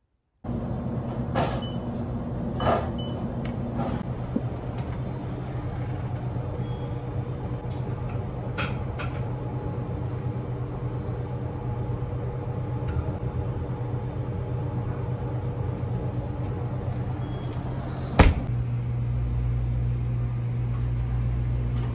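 Steady drone of a vehicle's interior in motion, with a low hum and scattered clicks and rattles. A sharp knock comes about 18 seconds in, after which the low rumble grows heavier.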